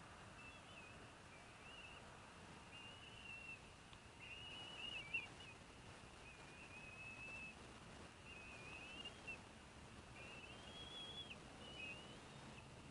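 Bald eaglets giving faint, thin, high whistled calls that waver in pitch, repeated every second or so.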